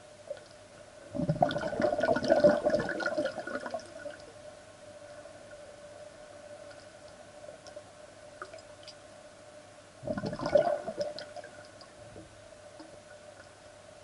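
Underwater sound in a swimming pool: a steady hum, broken twice by bursts of bubbling and crackling from air released underwater by a breath-holding swimmer. The first burst comes about a second in and lasts a couple of seconds; the second, shorter one comes about ten seconds in.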